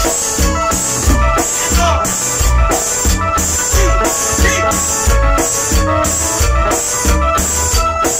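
Tropical cumbia band playing live: a keyboard melody with pitch bends over a steady drum beat with cymbals and bass, with no singing.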